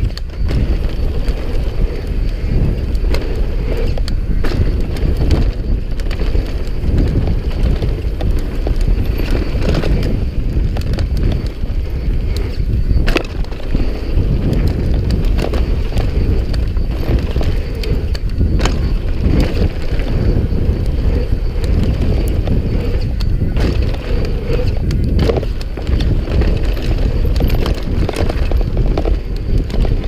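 Mountain bike riding fast down a dirt singletrack: a steady low rumble of tyres on packed dirt and wind on the microphone, with the bike rattling over bumps and a few sharp knocks as it hits them.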